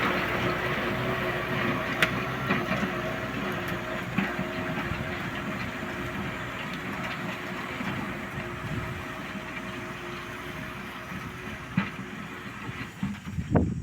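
Kubota M6040S tractor's diesel engine running under load with a steady rattling clatter, growing steadily fainter as it moves away. A brief loud low thump comes near the end.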